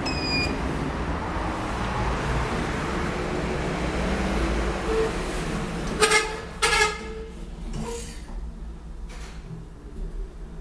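Elevator car of a ThyssenKrupp machine-room-less traction lift with its doors open to a steady background of traffic-like noise. A short high beep sounds as the down button is pressed, then about six seconds in two loud beeps come a little over half a second apart, after which the doors close and the background noise drops away.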